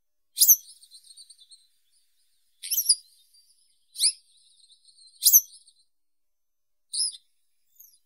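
Western yellow wagtail (Motacilla flava) singing: six short, high, sharp notes about a second apart, several trailed by a faint, quiet twitter.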